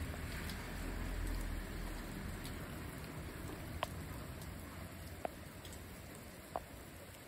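Steady rain falling, with three sharp, close drips spaced over the second half. A low rumble swells in the first couple of seconds and then fades away.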